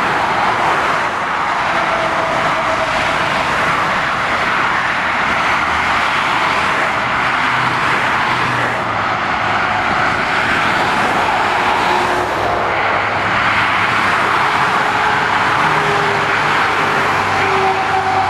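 Steady roar of motorway traffic, with lorries and cars passing at speed, mostly tyre noise over a low engine drone. Near the end a passing vehicle's tone slides slowly down in pitch.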